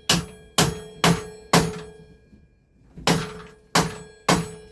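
Hammer blows through a block of wood, knocking a headset part off a bicycle fork or frame: seven sharp strikes, each ringing metallically, four quick ones, a pause, then three more.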